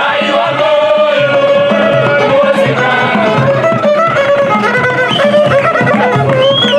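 Live traditional folk song: voices singing a melody over a steady, repeating drum beat.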